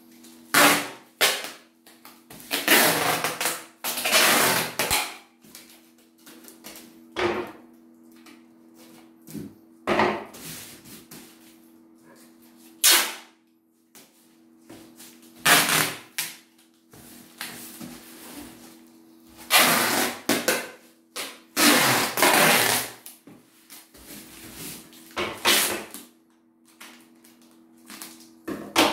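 Packing tape ripped off its roll in repeated loud pulls, some long and drawn out, and pressed onto a parcel wrapped in plastic bags, with crinkling of the plastic between pulls.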